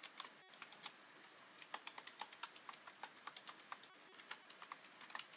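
Typing on a computer keyboard: an irregular run of faint key clicks, several a second.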